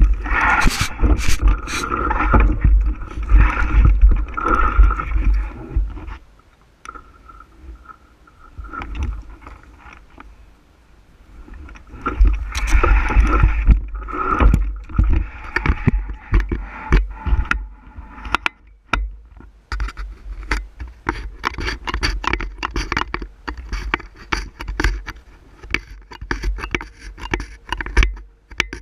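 Wind buffeting the microphone over the rattle and crunch of a bicycle riding a rough trail. Two long surges of noise give way to many quick clicks and knocks from bumps.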